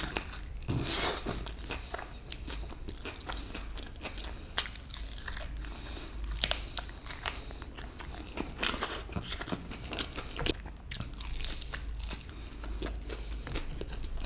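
A person biting into and chewing a barbecue-sauced, sesame-seeded chicken wing: repeated crunches and chewing sounds.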